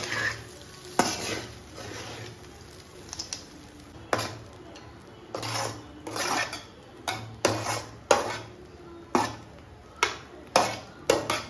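A flat metal spatula scraping and knocking against a metal kadai as rice is stirred and mixed, a dozen or so sharp clinks and scrapes at irregular intervals.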